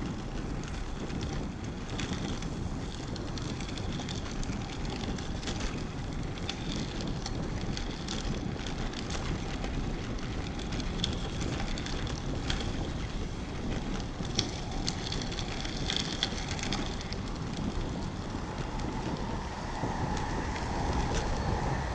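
Road bike being ridden, with wind rushing over the microphone and tyre noise, and scattered light clicks. Near the end a steady hum comes in over it.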